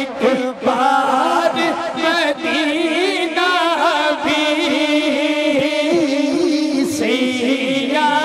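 Devotional naat singing: a voice draws out long, wavering melodic runs without clear words, over a steady held tone underneath.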